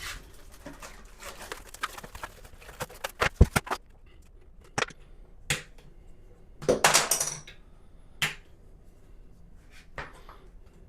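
Scattered clicks and knocks of objects being handled, the loudest a little over three seconds in, with a short rustle about seven seconds in.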